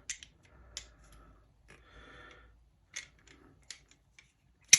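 M1 carbine's operating slide being worked free of the receiver: small metal clicks and soft scraping. A sharp click near the end is the loudest.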